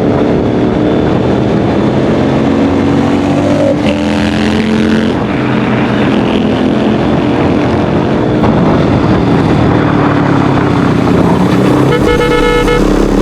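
Motorcycle engines running at road speed during a group ride, their pitch rising and falling as the bikes accelerate and ease off. Near the end a steady multi-tone sound comes in for about a second over the engines.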